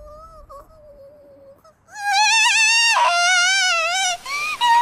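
A young girl's voice whimpering softly, then about two seconds in bursting into loud, high-pitched wailing that wavers in pitch.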